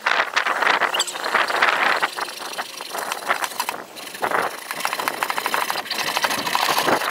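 Hacksaw blade cutting through blue PVC pipe, rasping in quick back-and-forth strokes, stopping abruptly near the end.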